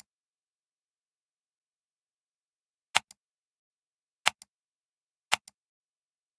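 Computer mouse clicks, three in the second half. Each is a sharp click followed a split second later by a fainter one.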